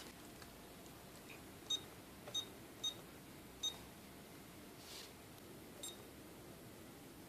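Five short, high electronic beeps at uneven intervals, four in quick succession and a fifth about two seconds later, over a faint steady room hum.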